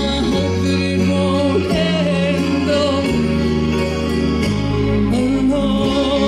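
An 80s power ballad played through a stage PA: a sung vocal line with vibrato over a backing track of held chords and bass notes that change every second or two.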